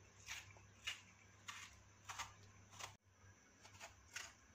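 Near silence, with a few faint, short ticks and rustles of hands peeling the skin off a tomato and a knife working it on a plastic cutting board.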